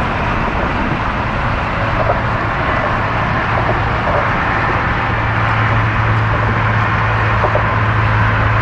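Steady outdoor noise with a motor vehicle's low engine hum that comes in about two seconds in and grows louder.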